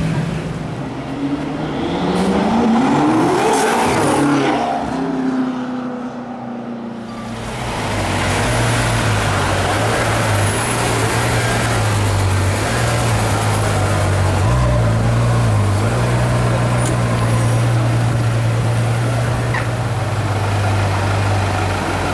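A sports car engine revs up with a rising pitch a couple of seconds in, then settles into a steady idle with a low, even hum.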